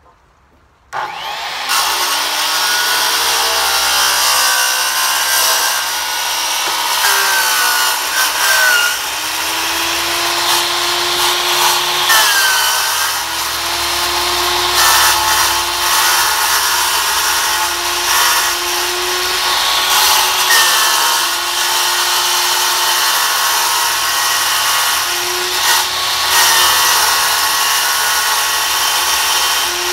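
Corded power saw cutting through a corrugated plastic septic tank riser. It starts suddenly about a second in and then runs continuously, the motor pitch wavering as the blade is pushed through the plastic.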